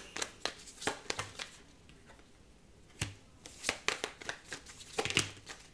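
Tarot deck being shuffled by hand: irregular soft flicks and taps of cards sliding and striking each other, with a short lull about halfway through.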